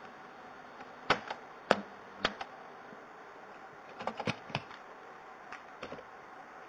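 Steady hiss with a scattering of sharp, irregular clicks and knocks, about ten in all. They come in two clusters, one around the first two seconds and one about four seconds in, with the loudest just under two seconds in.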